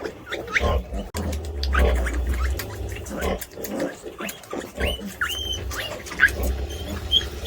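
A sow snoring in her sleep while she nurses, with long, low snores of a second or more, as her suckling piglets keep up short, high, rising squeals.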